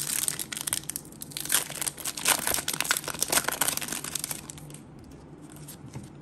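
Foil wrapper of a Pokémon trading card booster pack crinkling and tearing as it is ripped open and the cards are slid out; the crackling stops about five seconds in.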